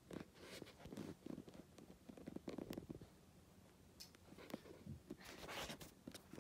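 Faint soft low grunts from a pet rabbit, mixed with small clicks and rustles as it moves about on carpet.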